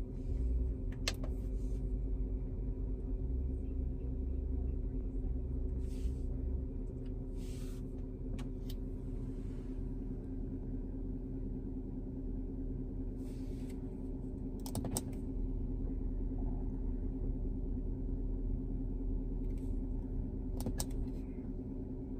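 Porsche 957 Cayenne GTS 4.8-litre V8 idling steadily, heard from inside the cabin as a low hum, with a few sharp clicks from cabin switches and buttons.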